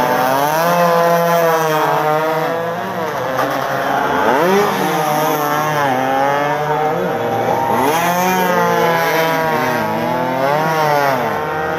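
Several two-stroke 115 cc racing motorcycle engines revving hard, their overlapping notes rising and falling in pitch as the bikes brake, corner and accelerate.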